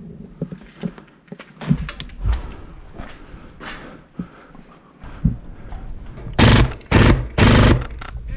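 Airsoft rifle firing three fast full-auto bursts near the end, after a few seconds of scattered clicks and knocks.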